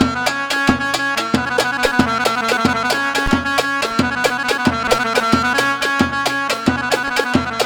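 Live Gulf-style instrumental music: a melody in held, steady notes over a fast, steady hand-drum rhythm.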